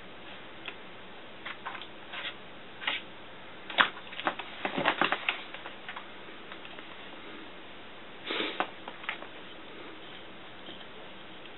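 Loose papers rustling with light taps and clicks as a cat shifts and paws about on a paper-strewn desk, in scattered bursts that bunch together about four seconds in and again near eight seconds.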